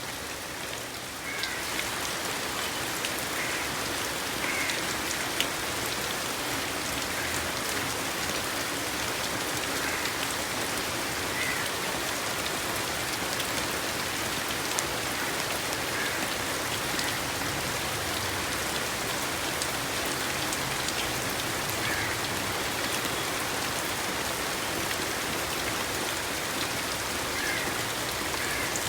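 Steady rain falling, an even hiss of drops hitting surfaces, growing slightly louder about a second and a half in. A faint short call sounds now and then over the rain.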